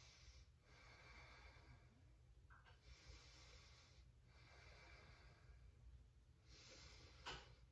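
A woman's slow, deep breathing, faint: long airy breaths of about two seconds each, with one short, sharper breath near the end.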